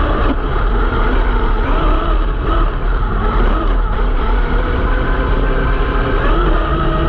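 Traxxas X-Maxx RC monster truck driving over rough grass, heard from a camera on its body: the brushless electric motor whines, rising and falling with the throttle, over a heavy rumble of the chassis, drivetrain and tyres on the bumpy ground.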